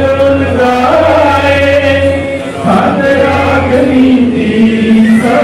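Male voice chanting a Sikh devotional recitation in long, slow, held notes that glide between pitches, with a short break about two and a half seconds in.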